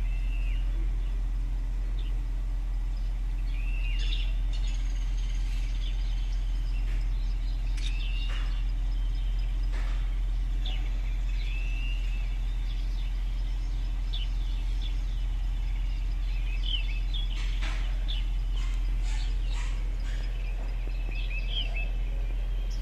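Birds chirping and calling in short curved notes, one every second or two, from a wildlife video playing through the car's speakers, over a steady low hum.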